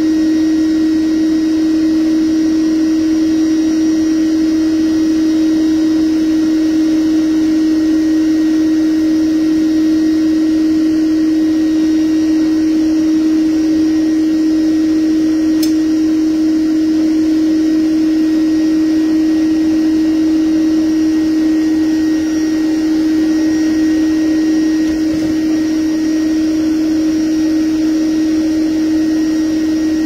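Bee vacuum running steadily, its motor giving a constant hum with a rushing hiss of air.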